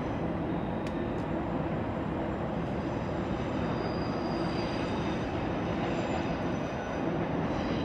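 Freight train rolling steadily across a railway bridge: a continuous low rumble of the passing cars and wheels on the rails.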